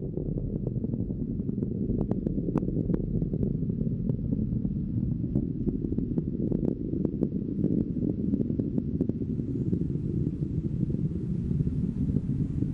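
SpaceX Falcon 9 first stage with its nine Merlin engines burning in ascent: a steady low rumble with scattered sharp crackles.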